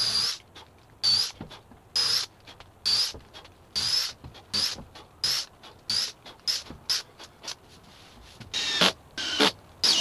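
Makita cordless drill run in short trigger bursts, about one a second, into mahogany planking, each burst a brief high whine that dips and rises in pitch.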